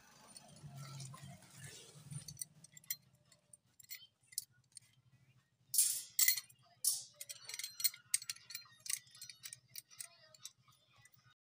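Irregular metallic clicks and clinks as small bolts, nuts and a hand tool are handled against a metal grid antenna reflector during assembly, loudest about six seconds in.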